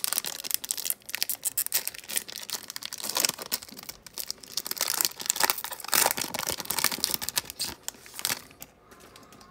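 Panini Prizm football card pack wrapper being torn open and crinkled by hand, a dense irregular crackle that dies away near the end.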